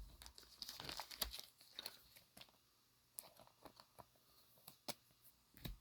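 Faint, scattered clicks and rustling of MetaZoo trading cards being handled and slid past one another, busiest in the first couple of seconds.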